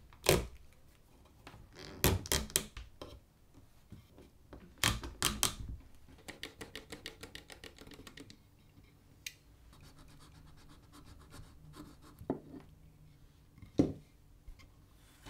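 Hand-work noises from wrapping leather around a wooden axe handle: sharp knocks and scraping taps in small clusters, with a quick run of light ticks in the middle.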